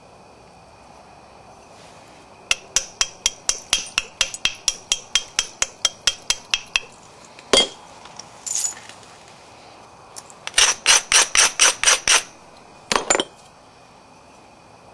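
Stone worked against stone in quick strokes, like a sandstone abrader grinding the edge of an agatized-coral point, giving fast runs of sharp clicks about five a second. There are two runs, with one harder knock and a brief scrape between them and two more clicks near the end.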